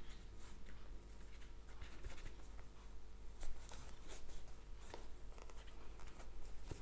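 Crochet hook working thick T-shirt yarn through stitches: soft, irregular scratching and rustling of hook and yarn, one scratch louder about three and a half seconds in.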